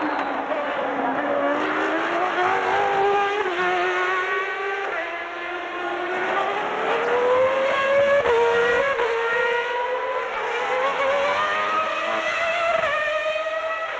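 Several 1993 Formula One cars' engines at high revs, their notes overlapping and climbing in pitch as they accelerate. Just over eight seconds in, one note drops sharply and then climbs again.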